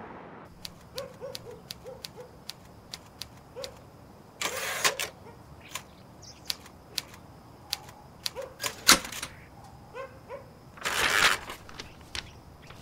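Typewriter keys striking in an irregular run of sharp clacks, broken by a few longer rasping bursts. The last burst, near the end, comes as the typed sheet is pulled out of the roller.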